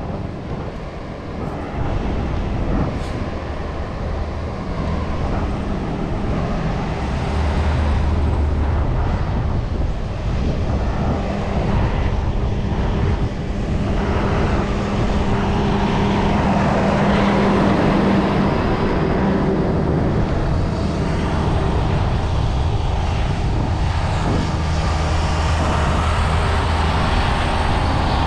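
Steady rumbling noise of a bicycle ride, with wind and road noise and a low engine-like hum. It builds over the first several seconds, then holds steady.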